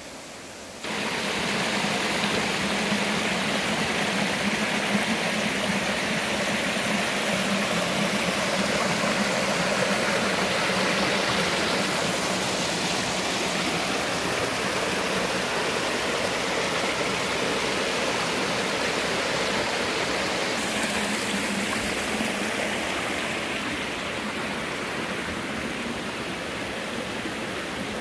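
Mountain valley stream rushing steadily, a loud wash of water that comes in abruptly about a second in.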